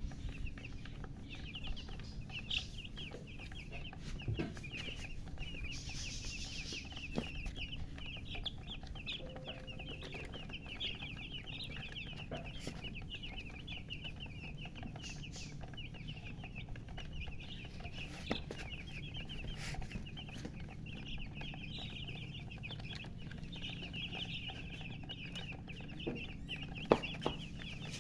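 A brood of newly hatched chicks peeping nonstop, many short high chirps overlapping into a dense chorus, with a single sharp knock near the end.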